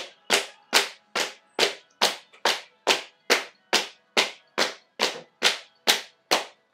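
Hand claps keeping a steady beat of about two and a half a second, each crisp stroke fading quickly, played as a percussion part.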